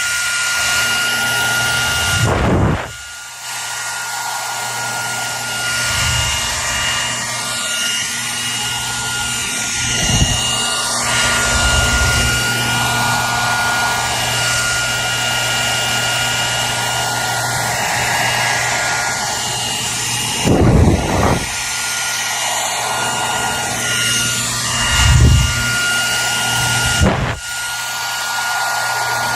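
Electric hair dryer running steadily, a loud rush of blown air with a high, even motor whine. A few brief low bumps break in now and then.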